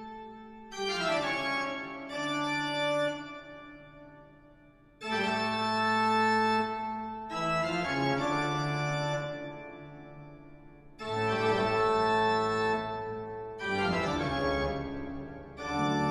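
Slow background music of held organ-like keyboard chords, each one entering, sustaining and fading before the next comes in every two to four seconds.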